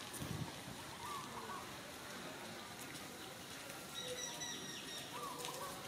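Scattered bird calls: short chirps and brief whistled notes, with a thin high whistle held for about a second near the end along with a few quick falling chirps. A soft low thump just at the start.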